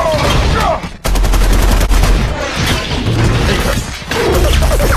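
Film battle sound effects: rapid automatic gunfire and weapon blasts over a heavy low rumble, the fire at its thickest after about a second in.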